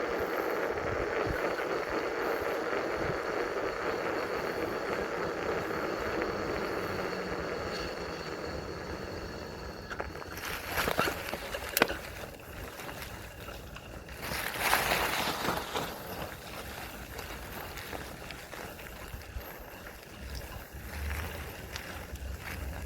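Polygon Xtrada 5 mountain bike rolling along a dirt trail: steady tyre and trail noise that eases off after about ten seconds, with two short rattling bursts and a sharp click near the middle.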